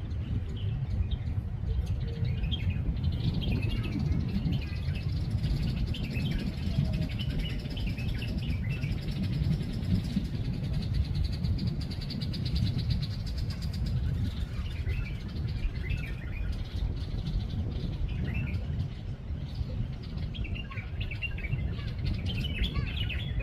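Small birds chirping on and off, over a steady low rumble of wind on the microphone.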